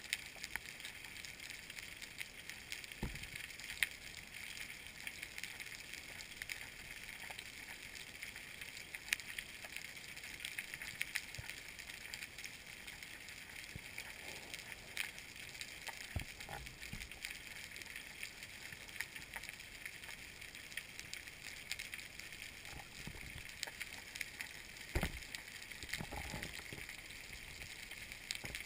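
Underwater ambience heard from below the surface: a steady crackle of many small clicks, with a few low thumps, about three seconds in, midway and near the end.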